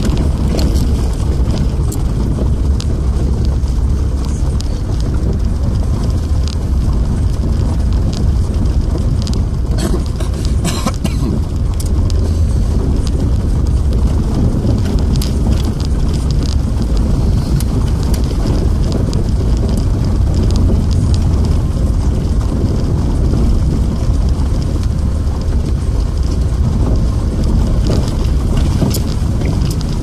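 Car driving slowly on a gravel road, heard from inside the cabin: a steady low rumble of tyres and engine, with scattered clicks and ticks from loose stones under the wheels.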